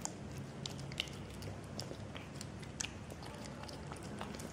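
A cat chewing and biting chunks of wet cat food from a plastic tub, with irregular short wet clicks and smacks.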